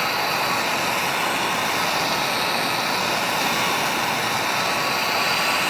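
Acetylene torch flame running with a steady, loud hiss, heating the transmission casing around a seized Torx bolt to loosen it.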